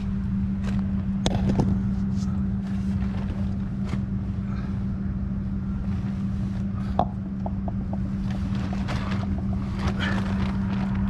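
A steady low hum with scattered clicks, knocks and light clattering of tools and parts being handled during an oil change, busiest about seven seconds in and again near the end.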